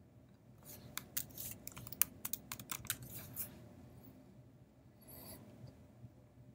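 Typing on a computer keyboard: a quick, uneven run of about a dozen keystrokes over some three seconds, entering a password. A faint rustle follows near the end.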